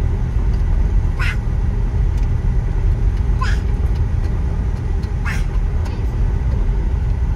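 Car driving on a gravel road, heard from inside the cabin: a steady low rumble of tyres and engine, with three brief sharp sounds about two seconds apart.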